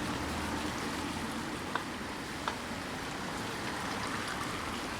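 Steady background hiss of room noise, with two faint short clicks, about a second and three quarters and two and a half seconds in.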